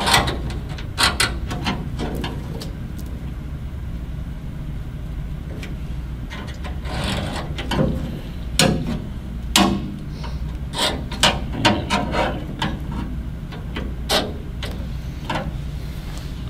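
Metal scribe scratching and tapping on a boiler's metal top panel while marking along a small template: a run of sharp clicks and short scrapes, over a steady low hum.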